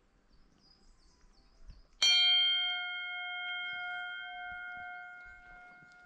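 A cast-metal trailside bell on a post, the kind rung to warn bears away, struck once about two seconds in. It rings on with a clear chord of several tones that slowly fades.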